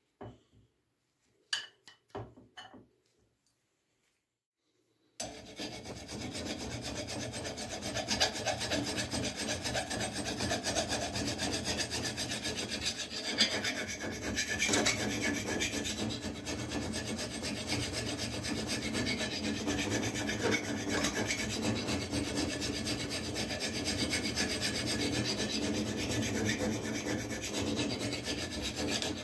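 A few clicks at first, then from about five seconds in a hand file rasping continuously in quick back-and-forth strokes across the edge of a spring-steel knife blank clamped in a vise.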